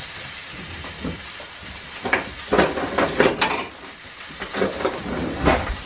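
Steak sizzling in a very hot oiled frying pan, a steady hiss throughout. From about two seconds in, a few sharp knocks and clatters sound over it.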